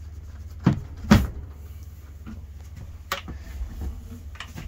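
Carpet-topped lid of a camper's battery compartment being unlatched and lifted open: two knocks about a second in, the second louder, then a couple of lighter clicks.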